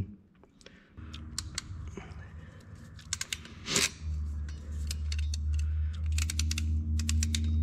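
A hand crimping tool squeezing insulated spade terminals onto fan wires: a series of sharp clicks and snips, some in quick clusters. A steady low hum comes in about halfway through.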